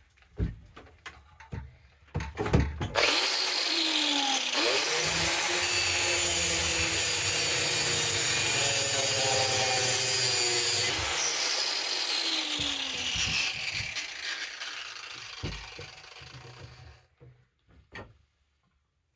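Power grinder cutting into a metal ice-auger part clamped in a vise. It runs steady and loud for about fourteen seconds, then its pitch falls as it winds down. A few knocks come before it starts, and there is one click near the end.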